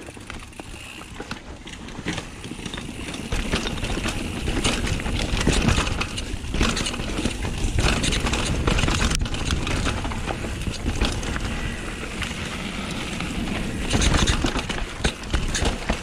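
2019 Vitus Dominer downhill mountain bike descending a rocky dirt trail at speed: tyres rattling and crunching over rocks, with constant clatter and knocks from the bike. A low rushing of wind on the microphone builds about three seconds in as speed picks up, and is loudest near the end.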